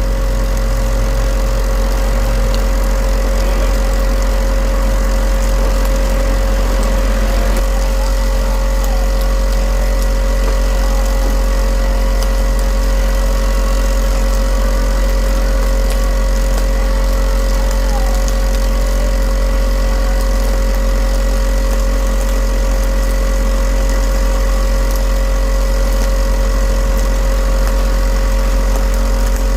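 Steady, loud machine hum with a deep drone and a few constant whining tones over it, unchanged throughout, like a motor or an idling engine running.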